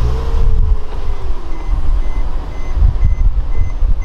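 A car's electronic warning chime beeps steadily about twice a second, starting about a second and a half in, over a loud low rumble.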